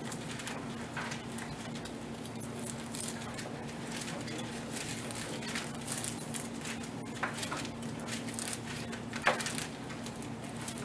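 Irregular paper rustling and page flipping as Bibles are leafed through to find a passage, over a steady low hum.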